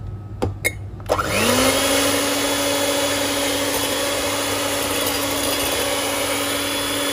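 Electric hand mixer beating eggs in a bowl: after a couple of clicks, its motor starts about a second in, the whine rising as it spins up and then running steadily.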